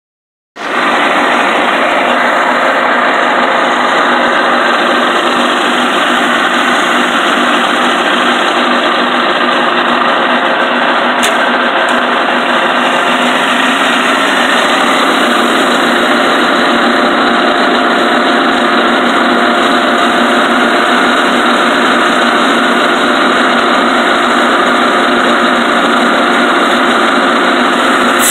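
Firewood processor (saw-splitter) running steadily with its chain conveyor turning, not yet cutting wood.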